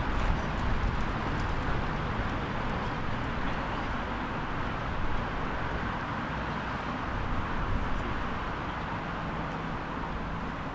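Steady outdoor background noise: a continuous low rumble with a hiss above it and no distinct events.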